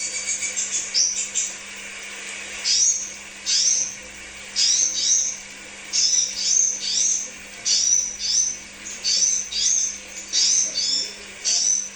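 Crimson sunbird (sepah raja) calling: sharp, high chirps repeated in quick pairs and short clusters, roughly one cluster a second, over a faint steady hum.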